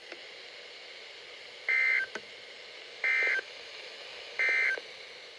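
Three short bursts of Emergency Alert System (SAME) digital data screech, each about a third of a second long and evenly spaced, over a steady hiss: the end-of-message code that closes an alert.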